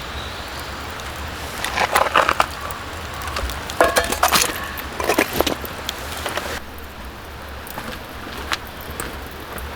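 Three short spells of clattering and clicking, about two, four and five seconds in, with scattered single clicks afterwards: camp gear being handled.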